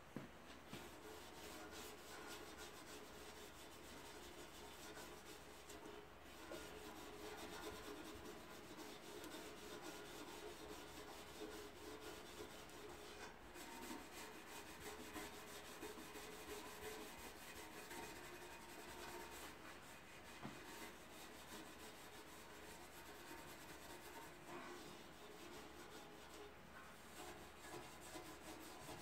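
Faint, continuous rubbing and scraping as the inside of an oil pan is wiped clean by a gloved hand, with a few small knocks of hand against the pan.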